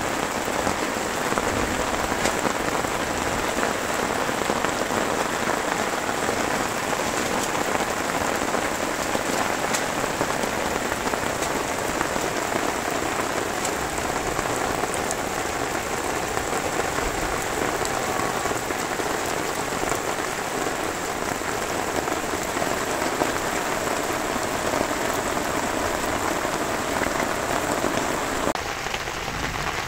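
Steady rain falling on a surface, a dense even hiss. Near the end the highest part of the hiss drops away.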